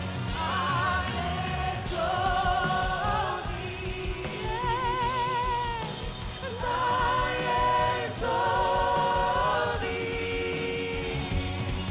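Gospel worship music: singers holding long notes with vibrato over a band accompaniment.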